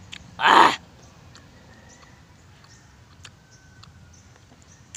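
A short, loud breathy mouth sound, about half a second in, from a man eating sour green calamansi with chili, followed by quiet with a few faint ticks.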